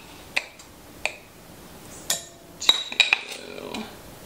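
Measuring cup clinking against a glass sugar jar and a stainless steel mixer bowl while white sugar is scooped and tipped in. It makes a string of sharp clinks, several bunched together past the middle, some with a short ring.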